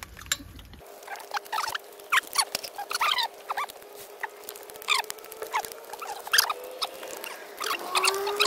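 Wet smacking, sucking and chewing sounds of people eating curried fish and roti with their hands: an irregular run of short squeaky clicks over a faint steady hum.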